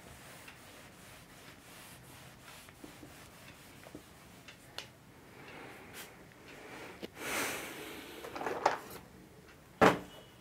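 Whiteboard duster wiping marker off a whiteboard: a few rubbing strokes with light clicks, and one sharp knock near the end.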